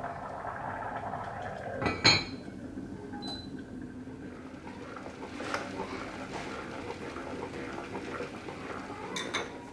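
Water poured from a kettle into a pot of rice, then a sharp clink about two seconds in as the lid goes on, followed by light kitchen clatter with a couple of small knocks.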